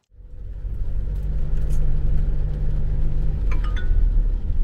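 Car on the move: a steady, low rumble of road and engine noise, with a couple of light clinks about three and a half seconds in.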